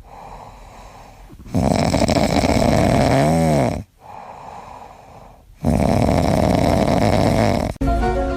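A sleeping pet snoring loudly: long rasping snores of about two seconds each, with quieter breaths between, repeating roughly every four seconds. A short music cue begins near the end.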